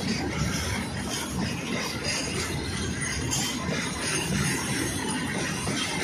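Freight train of tank wagons rolling past close by: a steady noise and rattle of steel wheels and bogies running over the rails.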